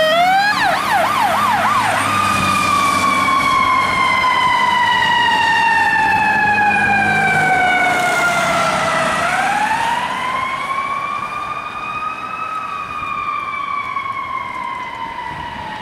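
Fire engine siren: a quick rapid yelp, then a slow wail that falls for several seconds, rises again and falls. It grows fainter toward the end as the engine drives away.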